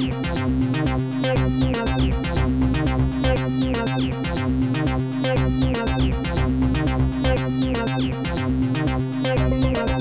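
Background music: upbeat electronic track with synthesizer and keyboard over a steady beat.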